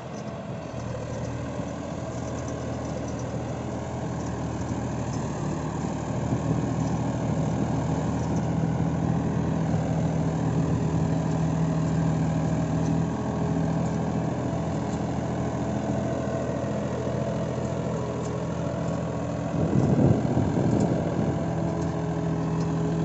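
John Deere 5405 tractor's diesel engine running under load as it drags a laser land leveller blade full of soil. The engine note is steady and grows louder over the first several seconds as the tractor comes closer, with a brief louder, rougher stretch near the end.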